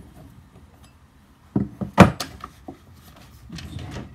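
Knocks and clatter of the pole pruner's metal shaft and plastic powerhead being handled on a wooden workbench. A sharp knock about two seconds in is the loudest, with a few lighter taps around it and a short rubbing noise near the end.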